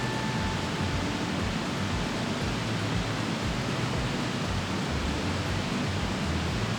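Steady rushing noise that stays even throughout, with no separate crackles, strikes or knocks.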